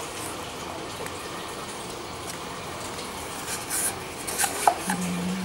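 Quiet room background, then light rustles and small taps in the last two seconds as a cardboard tube and a plastic glue bottle are handled. A brief low tone sounds near the end.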